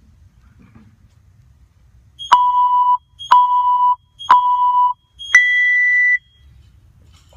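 Workout timer countdown: three short beeps about a second apart, then one longer, higher-pitched beep signalling the start of the timed workout.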